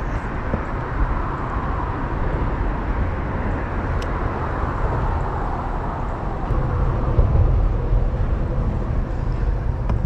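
Steady outdoor rumble of road traffic from a nearby highway bridge, mixed with a low, fluctuating wind rumble. There is a faint click about four seconds in.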